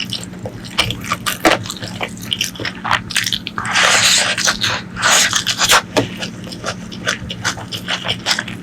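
Close-up eating sounds of rice and spicy pork ribs: wet chewing and lip smacks, with longer sucking or slurping noises about four and five seconds in.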